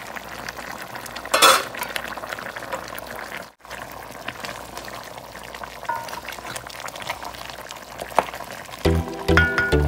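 Beef shank pieces sizzling in a pot as a spatula stirs them, with scrapes and clinks against the pot. Music comes in near the end.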